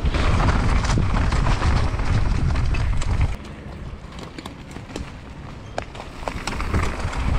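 Downhill mountain bike riding a trail: tyre rumble and wind on the microphone. About three seconds in the noise drops suddenly, leaving scattered sharp clicks and rattles from the bike, and it builds again near the end.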